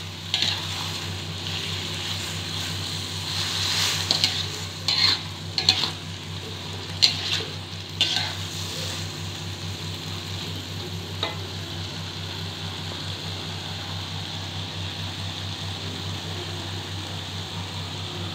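Oyster mushrooms and mustard greens sizzling as they stir-fry in a pan, with utensil scrapes against the pan as they are stirred during roughly the first half, then mostly steady sizzling with one more scrape later on.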